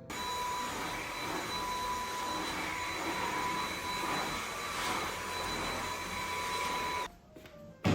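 Steady rushing whir of a fan-driven electric appliance with a high-pitched whine. It starts suddenly and cuts off about seven seconds later, followed by a sharp click near the end.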